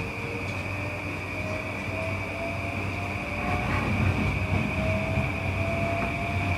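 JR East E235 series electric train accelerating, its SiC-VVVF inverter and traction motors giving a whine that rises steadily in pitch over the rumble of the wheels on the rails. The running noise grows louder about halfway through.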